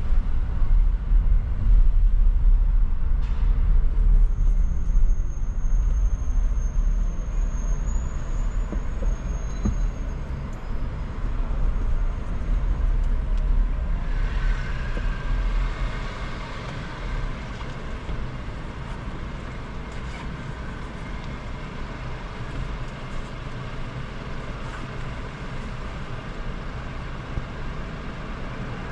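Car driving through city traffic: a steady low road and engine rumble, heavier in the first half and easing off after about fifteen seconds. A thin high-pitched whine runs for several seconds about four seconds in.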